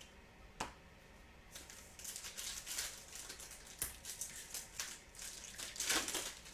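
Trading cards being handled: a light click, then a run of dry rustles and soft clicks as cards slide against each other and their packaging, loudest near the end.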